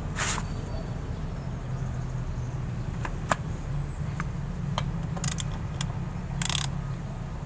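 Ratchet wrench running lug nuts onto the front wheel studs of a Bajaj RE three-wheeler: scattered sharp clicks and two short ratcheting rasps, the second about six and a half seconds in, over a steady low hum.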